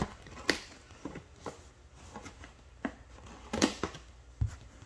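Hands handling a large cardboard toy box: irregular taps and light rubbing on the cardboard, a small cluster of scuffs past the middle, and a dull thump near the end.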